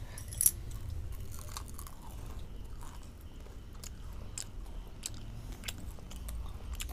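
Crispy fried net-pancake rolls being bitten and chewed: a string of sharp crunches and crackles, the loudest about half a second in.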